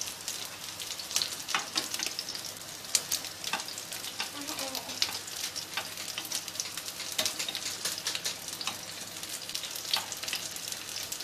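Chicken burger patties frying in shallow oil in a non-stick pan: a steady sizzle with frequent small crackles and pops.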